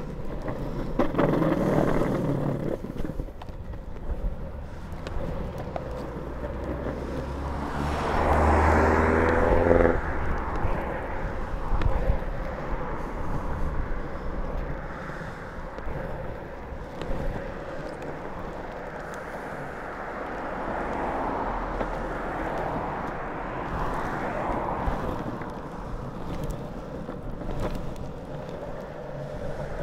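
Longboard wheels rolling over pavement and cycle-lane asphalt: a steady rolling rumble with small clicks over the joints. About eight seconds in, a road vehicle passes close by, its engine rising a little in pitch for two seconds.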